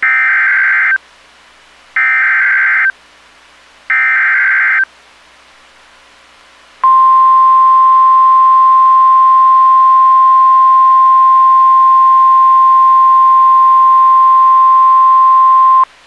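Emergency Alert System SAME header on NOAA Weather Radio: three one-second bursts of shrill digital data squawk, about a second apart. After a pause, the steady single-pitch 1050 Hz weather radio alert tone sounds for about nine seconds. Together they signal the start of a new alert, here a severe thunderstorm warning.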